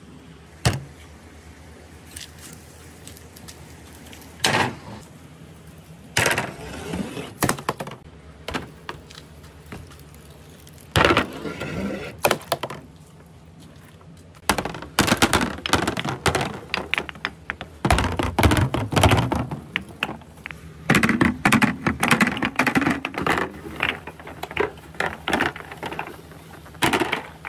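Large glass and resin balls rolling down a marble-run board, knocking against each other and clattering into a clear catch box. There are a few single clacks at first, then long runs of rapid hard clacks and knocks.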